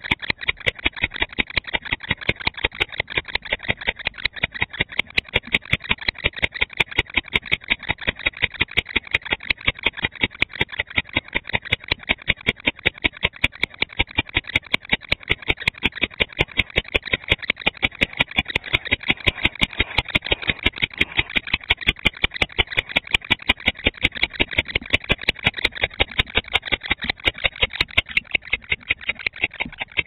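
Male barn owl calling in a fast, steady series of short, sharp calls, about three to four a second.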